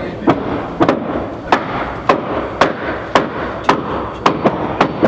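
Sharp, loud cracking impacts, evenly spaced at about two a second, each with a short echoing tail, that sound like gunfire but are not gunshots.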